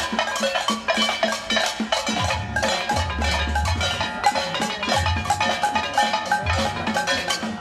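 Upbeat dance music with a steady beat: drums, a bass line and bright pitched percussion.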